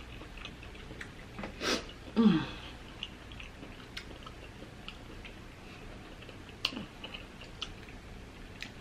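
A person chewing food close to the microphone, with small wet mouth clicks scattered throughout. A short vocal sound falling in pitch comes about two seconds in.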